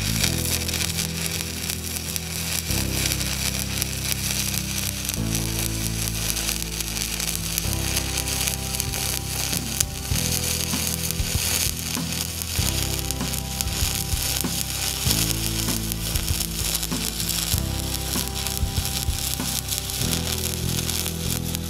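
Stick-welding arc crackling and sizzling steadily as a 3/32-inch 7018 electrode burns at 90 amps DCEP. Underneath, low steady tones shift about every two and a half seconds.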